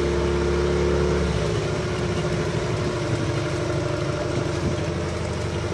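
Motorboat engine running steadily under way, with water rushing and splashing along the hull; the engine's low hum changes about a second in.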